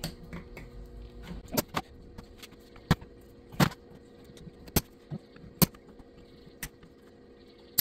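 Sharp, irregular metallic clicks and clinks of pliers working inside the aluminium housing of a 6L80 transmission thermostat valve while it is being disassembled, about eight in all.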